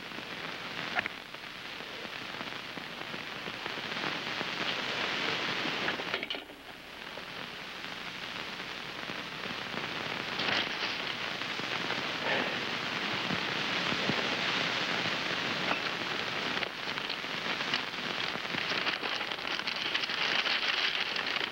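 Steady hiss of heavy rain falling, with a few faint drips and ticks; it dips briefly about six seconds in, then builds again.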